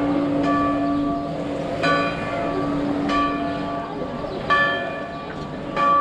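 A church bell tolling, struck five times at an even pace of about one strike every second and a half, each strike left to ring on into the next.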